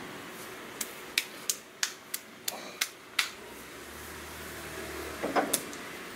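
A series of irregular sharp clicks and knocks, about eight in two and a half seconds, then a short cluster of louder knocks near the end.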